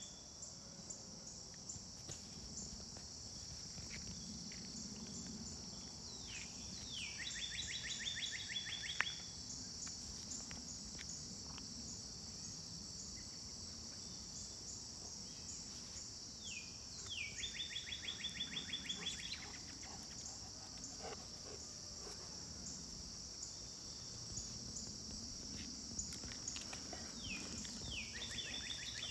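A steady, high-pitched chorus of insects, with a songbird singing the same short song three times, about ten seconds apart: a couple of falling notes, then a fast trill lasting about two seconds.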